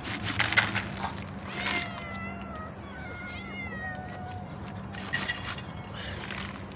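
Several hungry cats meowing repeatedly, calls overlapping, begging for food as they are fed. A few short scratchy rustles near the start and about five seconds in are the loudest moments.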